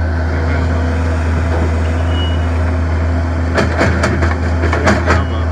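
Heavy diesel machinery running with a steady low drone. A few sharp clunks come about three and a half to five seconds in, as debris is loaded.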